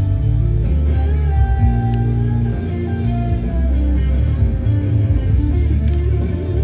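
Rock music with guitar playing steadily in the background.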